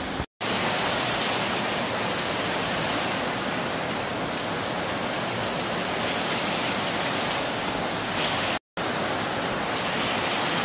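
Heavy rain pouring down as a steady, dense hiss. It cuts out twice for an instant, about a third of a second in and about two seconds before the end.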